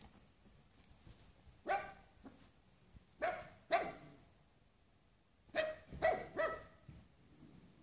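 Wirehaired miniature dachshund puppy barking in short single barks: one, then two a moment later, then three in quick succession near the end.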